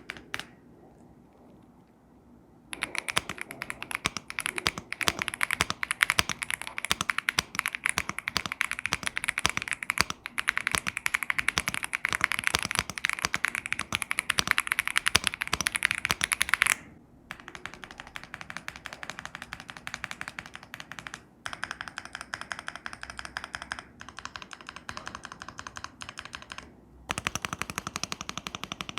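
Fast typing on a Womier S-K71 aluminum, gasket-mounted mechanical keyboard with Otemu white switches: a rapid, dense stream of keystrokes. It starts about three seconds in, softens into lighter typing with short pauses from about the middle, and gets louder again near the end.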